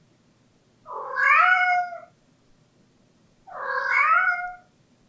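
Long-haired pet cat giving two drawn-out pleading meows ("ang-ung"), each a little over a second long, rising in pitch at the start then levelling off. The cat is at a closed sliding door, calling for it to be opened.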